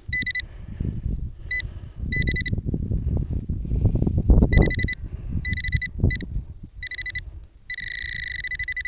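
Handheld metal-detecting pinpointer giving its buzzing alert tone in short bursts. The bursts lengthen and run almost continuously near the end as the probe closes on a small target in the soil. Under it is loud, dull scuffing and scraping as the soil in the hole is worked by hand.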